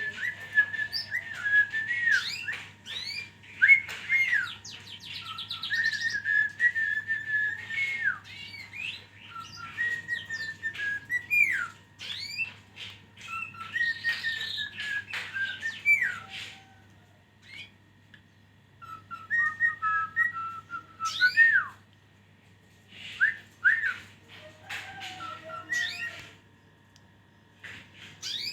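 Caged songbird singing a long run of clear whistled phrases with sliding notes and sharp chirps, with short breaks between bouts, over a faint steady hum.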